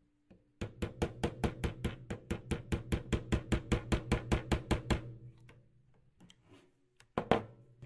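Small ball-peen hammer tapping a pin into the safety of a Beretta ARX-100's plastic lower receiver: a fast, even run of light taps, about six a second, for some four seconds, then a few more taps near the end.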